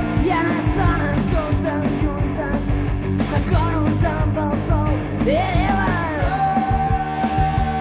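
Rock band demo recording playing: electric guitars, bass and drums, with sung Catalan vocals. A long held note begins about six seconds in.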